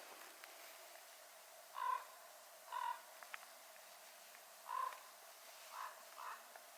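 A corvid cawing: five short, harsh calls spaced about a second apart. The last two are fainter.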